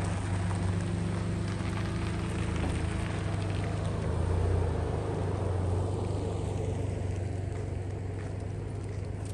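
Chevrolet Colorado pickup engine running steadily at low speed as the truck is manoeuvred, a low even hum that grows thinner and quieter near the end.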